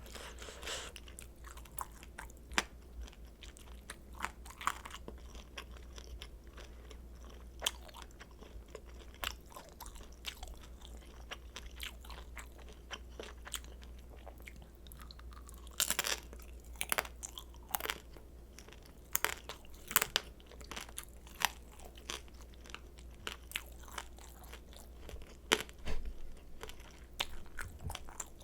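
Close-miked chewing of crispy pan-fried kimchi dumplings: crunching bites with many sharp crackles, busier in the second half. A faint steady low hum sits underneath.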